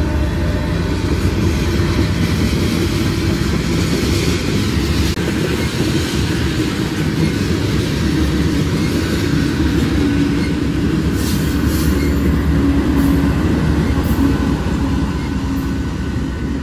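Freight train of loaded petroleum tank cars rolling past at close range, steel wheels rumbling and clacking steadily on the rails.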